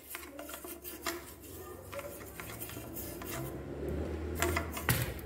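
Scraping and rubbing inside a metal EGR air pipe from a 1.5 dCi K9K diesel engine as oily carbon deposits are scrubbed out with gasoline, with scattered light metallic clicks and knocks.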